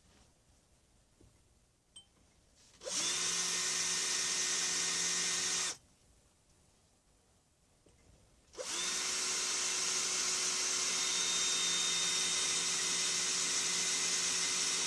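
Electric drill with a small bit drilling into the pin hole of a Monarch 3 1/2" bench vise, running steadily twice: a short run of about three seconds, then a longer run starting about halfway through. The bit is meeting solid metal: the pin is still in the hole.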